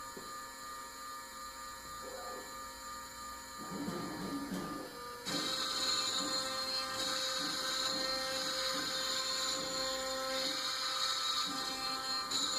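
CNC router running, with a steady whine from its spindle and drive motors. About five seconds in, it suddenly grows louder, adding a high hiss over a low sound that repeats about once a second.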